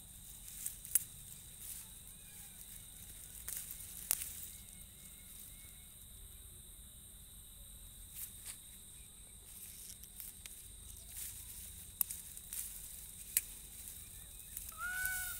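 Hand-weeding grass out of a bed of chili seedlings: soft rustling of leaves and stems, with a few sharp clicks and snaps. Near the end a bird starts a quick series of repeated, arching calls.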